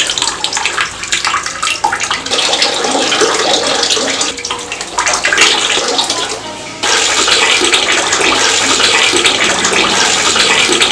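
Running water splashing irregularly, then about seven seconds in changing abruptly to a steadier, louder rush of water.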